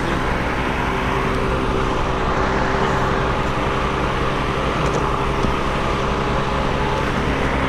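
An engine running steadily, a constant low drone with an even hum of evenly spaced tones under it.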